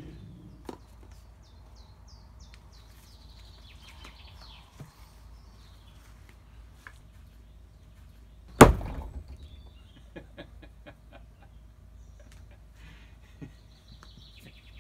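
A thrown axe strikes the wooden target round with one loud, sharp thunk a little past halfway. Birds chirp in the background.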